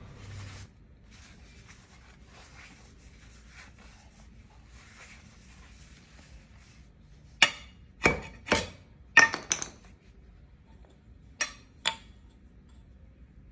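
Faint rubbing and scraping. About halfway through it gives way to about seven sharp, loud knocks in quick groups, each with a short ring.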